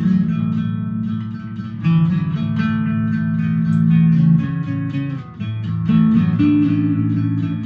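Acoustic guitar being picked rhythmically over long, held low notes that change a few times, through a Strymon BigSky reverb pedal.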